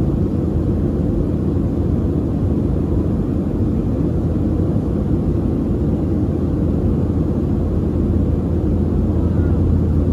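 Boeing 737-700 cabin noise: the steady, loud, low rumble of the CFM56 jet engines and rushing air heard from inside the passenger cabin.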